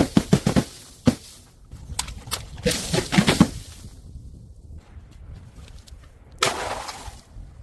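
Objects being smashed and crushed: a quick run of sharp cracks, a single crack about a second in, a dense cluster of crunching cracks between two and three and a half seconds, and a longer crash about six and a half seconds in.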